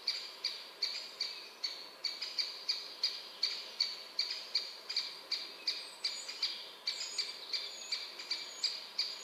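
A songbird in a spruce forest repeating one short, high note over and over at an even pace, nearly three times a second. From about six seconds in, a second bird adds a few higher chirps.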